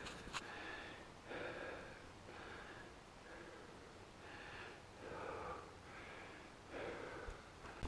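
A person breathing hard close to the microphone, faint, about one breath a second: out of breath from the climb.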